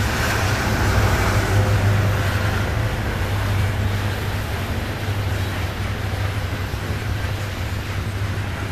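Loaded coal cars of a freight train rolling past, a steady rumble of wheels on rail with a deep hum underneath.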